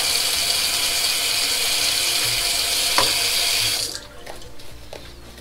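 Water running from a bathroom tap into the sink as a steady hiss, with one sharp knock about three seconds in, then the tap shut off abruptly just before four seconds.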